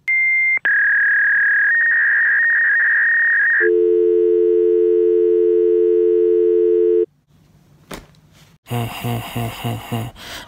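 Telephone line tones: a high electronic tone for about three and a half seconds, then a steady low dial tone that cuts off suddenly about seven seconds in.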